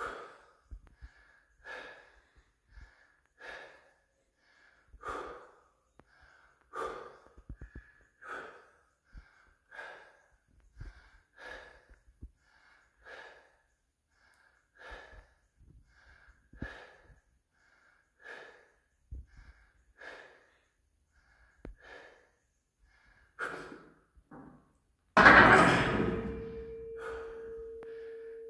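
A strongman's heavy, rhythmic breathing while he holds a 732.5 kg loaded barbell on his shoulders, a forceful breath about once a second. Near the end comes a sudden loud metal clang of the loaded bar and plates against the steel rack, leaving a ringing tone that fades slowly.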